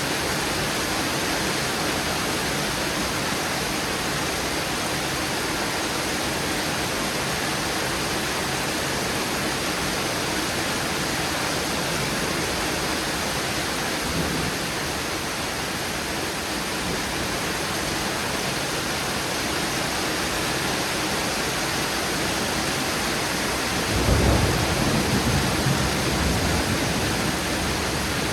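Steady heavy rain in a thunderstorm, with a roll of thunder rumbling for a few seconds near the end.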